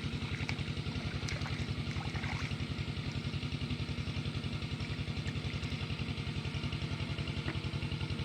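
Small single-cylinder-type engine running steadily at an even speed, a rapid regular low thudding with no change in pace.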